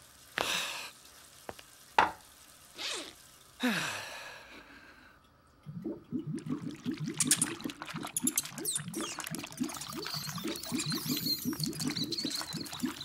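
A few short gurgles that slide downward in pitch, then from about six seconds a dense, rapid scrabbling and squeaking: a swarm of rats pouring out of a toilet bowl.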